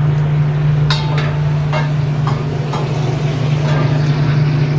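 Steady low hum of restaurant kitchen equipment, with about five sharp clinks of a metal utensil against a cooking pan between one and three seconds in, one of them ringing briefly.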